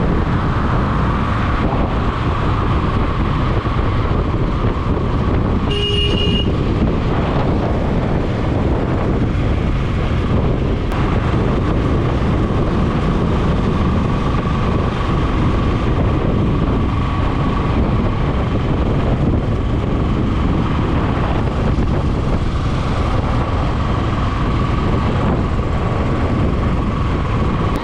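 Steady road and wind noise of a Royal Enfield motorcycle riding along the highway, with a short vehicle horn toot about six seconds in.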